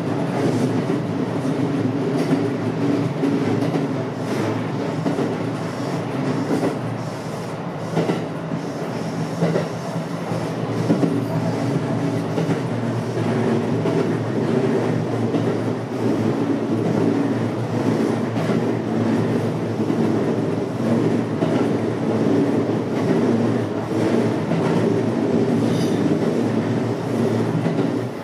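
JR West 227 series electric train running along the line, heard from inside the front car: a steady rumble of wheels on rail, with a few sharper clicks about eight and eleven seconds in.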